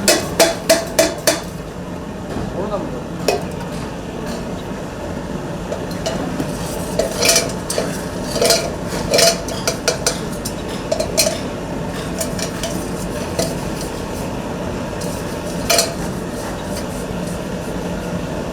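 Coppersmith's work during copper tinning: light metallic taps and clinks on copper ring out over a steady background noise. A quick run of about six strikes opens the stretch, then irregular single taps and small clusters follow.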